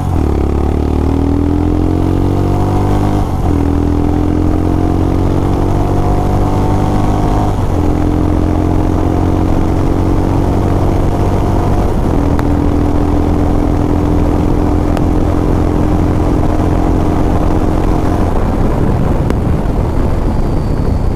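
Motorcycle accelerating hard through the gears: the engine note climbs and drops back at each upshift, about three, seven and a half and twelve seconds in, then holds steady before the throttle is eased off near the end. Heavy wind noise runs underneath.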